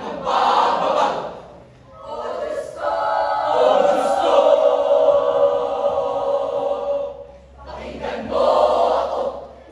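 A choir of students sings one held chord in harmony for several seconds. Loud unison group shouts come at the start and again near the end.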